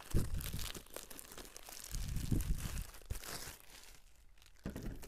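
Plastic wrapping crinkling and tearing as it is pulled off a power wheelchair headrest, with a couple of dull bumps from handling near the start and about two seconds in.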